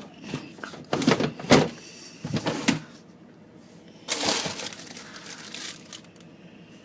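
Food containers knocking and clinking together as they are handled and moved about in a fridge, followed by a couple of seconds of rustling.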